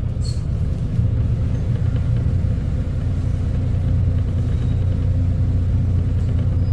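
Volvo B250RLE bus engine running steadily, a low, even rumble that holds the same pitch throughout.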